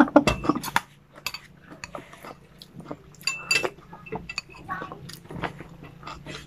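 Spoon clinking and scraping against a bowl while eating, with chewing between. The sharpest clinks come right at the start. A faint steady low hum runs underneath.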